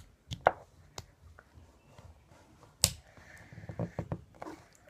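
Sharp clicks and snaps of lighter parts being pried apart while working the lighter's black top piece loose, loudest about half a second in and again near three seconds, with a scatter of smaller clicks toward the end.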